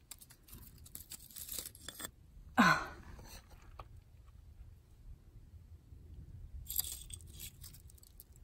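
Dry twigs and debris of a pack rat nest rustling and crunching as a hand sifts through them and lifts out a pottery sherd. A short falling vocal sound about two and a half seconds in is the loudest moment, and a second spell of rustling comes near the end.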